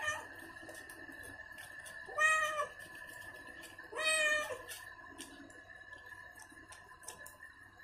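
A wet domestic cat meowing twice, about two seconds apart, each call about half a second long, while it is being lathered with shampoo in a bath.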